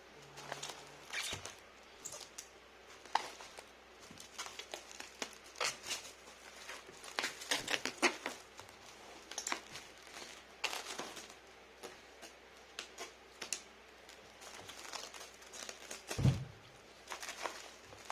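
Packing material being handled: plastic and paper crinkling and rustling in irregular bursts with scattered clicks and knocks, and one dull thump about sixteen seconds in.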